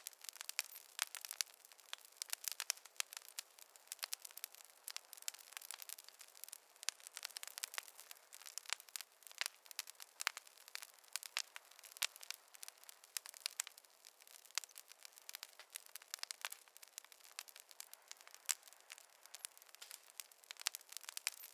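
Wood fire crackling: a steady run of irregular sharp pops and snaps over a faint hiss.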